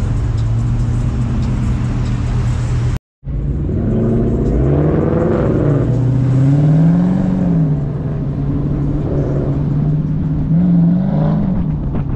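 Dodge Charger Scat Pack's 392 HEMI V8 running under way with a steady drone, its revs rising and falling twice, over steady road hiss. The sound cuts out for a moment about three seconds in.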